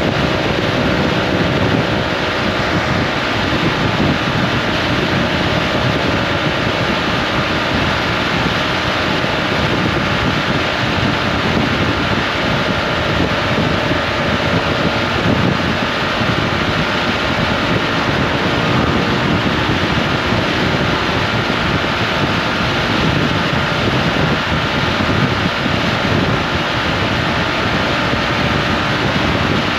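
Honda ADV 350 scooter riding at a steady speed: wind rushing over the microphone, with the engine's steady drone underneath.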